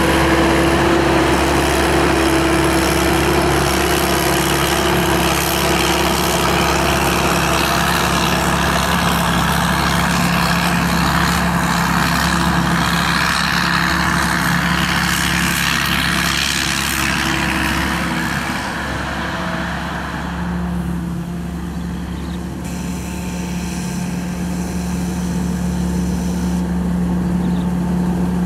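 SAK KM-D combine harvester's 260-horsepower turbocharged engine running steadily under heavy mechanical noise. About twenty seconds in, the higher noise eases and a steadier, lower engine hum is left.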